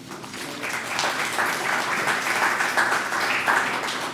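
Small audience applauding, many hands clapping together; the clapping builds up over the first second and then holds steady.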